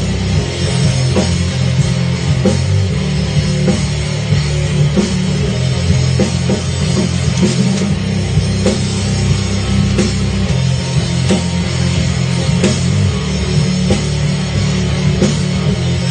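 Instrumental break of a loud rock song: the band plays on with a steady drum beat and no singing.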